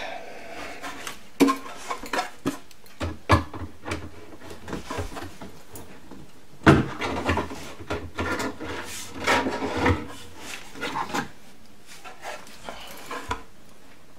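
Wooden pull-out shelf being worked into a kitchen cabinet on its drawer guides: scattered knocks, bumps and scraping of wood against the cabinet and guides, with one loud knock about halfway through.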